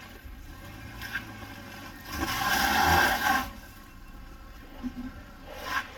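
A rough scraping noise about two seconds in, lasting over a second, with a shorter scrape near the end.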